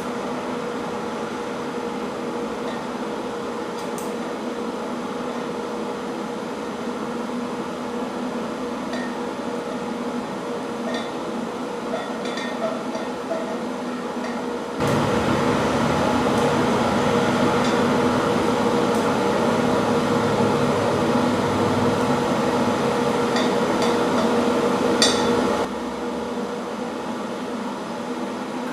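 TIG welder running while tack-welding a steel pipe joint: a steady hum and hiss with a few faint clicks. About fifteen seconds in it steps up suddenly louder and fuller, then drops back just as suddenly about ten seconds later.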